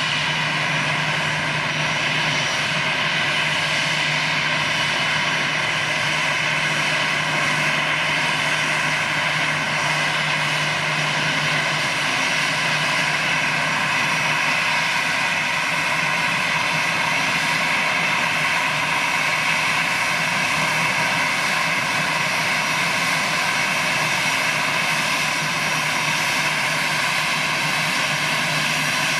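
Airbus A320's twin jet engines running steadily at taxi power as the airliner taxis close by: an unchanging whine of several held tones over a rushing noise.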